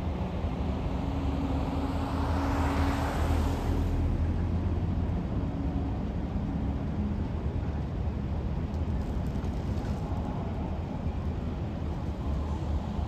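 Steady low hum of road traffic and a running engine, with one vehicle passing: a broad whoosh that swells and fades about two to four seconds in.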